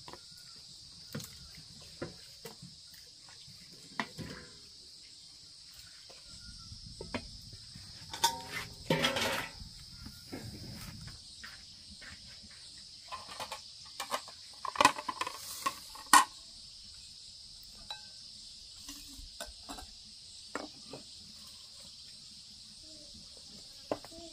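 Steady high-pitched insect chorus, with scattered clinks and knocks of metal cookware and utensils. Louder clattering with a metallic ring comes about a third of the way in and again just past halfway.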